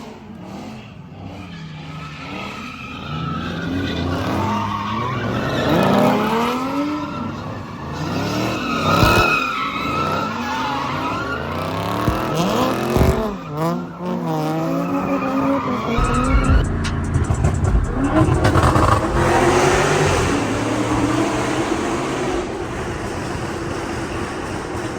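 Dodge Charger Scat Pack's 6.4-litre (392) Hemi V8 exhaust under hard driving, its pitch climbing and falling repeatedly as the engine revs and shifts. A deeper, rumbling stretch comes in from about two-thirds of the way through.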